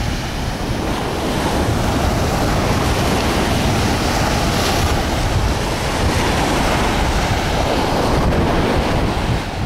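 Ocean surf and wind blowing on the microphone, a steady loud rush with low buffeting.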